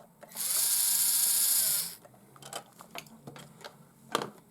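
Traxxas TRX-4M crawler's small electric motor and gearbox spinning up on the throttle, holding a steady high whine for about a second and a half, then winding down. Light clicks follow, with one sharper knock near the end.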